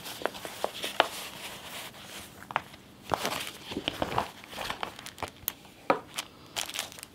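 Waxed canvas watch roll being untied and unrolled by hand: stiff fabric rustling and crinkling, with irregular small taps and clicks as it is smoothed flat on the table.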